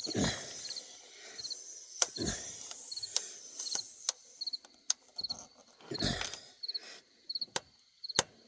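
Tire plug being forced into the puncture with a tire-plug insertion tool: a few rubbing, scraping strokes with sharp clicks between them. Crickets chirp in a steady, regular pattern behind it.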